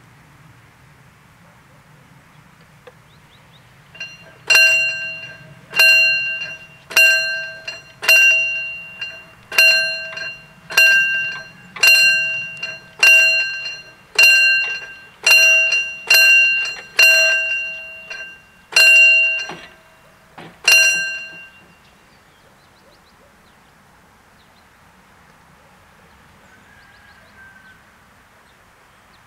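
Level crossing warning bell striking about fourteen times, roughly once a second, each stroke ringing out before the next, then stopping: the signal that a train is approaching as the barriers come down.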